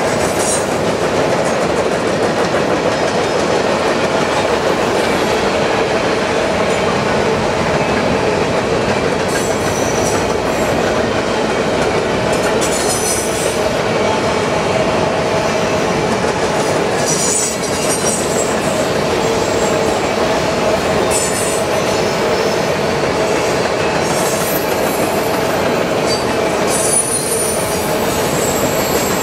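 Freight train of loaded covered hopper grain cars rolling past at steady speed: an even rumble of steel wheels on the rails, with several short high-pitched wheel squeals in the second half.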